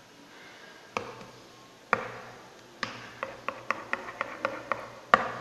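Metal spoon knocking against the side of a bowl while stirring a thick yogurt mixture: single taps about a second apart, then a quick run of about five taps a second, and a louder knock near the end.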